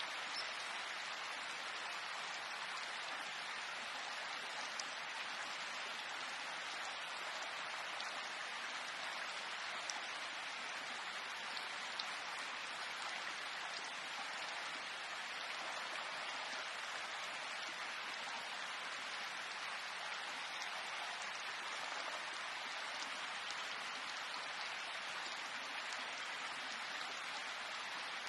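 Steady rain falling, an even hiss with a few slightly louder individual drops.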